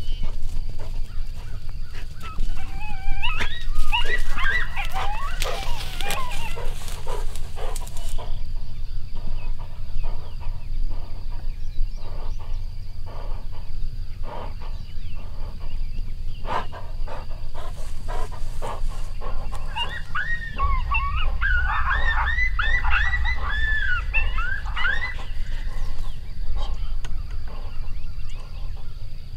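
A decoy dog and a coyote fighting, with high, wavering yelps and yips in two bursts, one about three seconds in and another about twenty seconds in, and scattered short cries between, over a steady low rumble.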